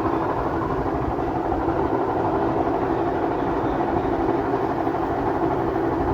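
Whirlpool top-load washing machine in its spin cycle, making a loud, steady mechanical rumble. The noise comes from a damaged bearing in the drum mechanism after its water seal failed.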